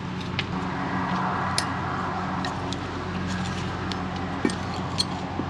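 Scattered sharp metal clicks and clinks as brake pad retaining clips are pried off and fitted onto a caliper bracket, over a steady background hum.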